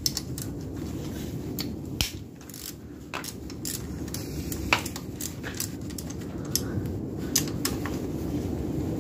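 Irregular metallic clicks and clinks of a socket wrench working the engine-cover bolts of a 150cc ATV engine as they are loosened and taken out, over a steady low rumble.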